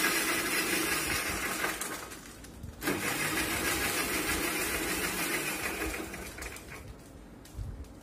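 Electric mixer grinder with a steel jar running at full speed, blending milk, ice cream and ice into a chocolate shake. It stops about two seconds in, starts again a second later and winds down near the end.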